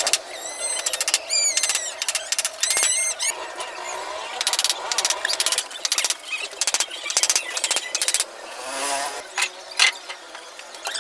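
Many quick, high-pitched squeaky chirps, each rising and falling in pitch, coming in dense runs.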